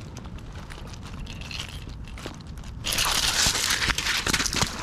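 Gravel crunching and crackling as a just-landed striped bass is unhooked and drops onto the stones. It starts as faint scattered clicks, and about three seconds in turns much louder: a steady hiss full of sharp crackles.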